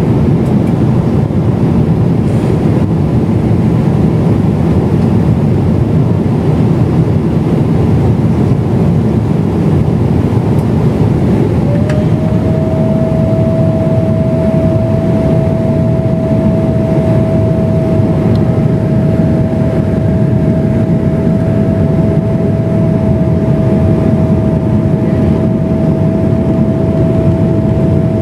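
Steady, loud jet-airliner cabin noise heard from a window seat of a Boeing 777-300ER in flight: a constant rumble of the GE90 engines and airflow. About twelve seconds in, a steady whine comes in and holds.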